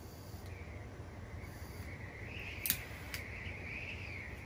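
Two sharp clicks about half a second apart from a child-proof torch igniter being worked with gloved hands, over a steady low hum and a faint wavering high tone.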